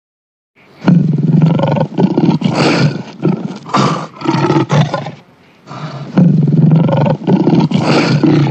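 Male lion roaring: a run of loud roars starting about a second in, with a brief pause about five seconds in before the roaring resumes.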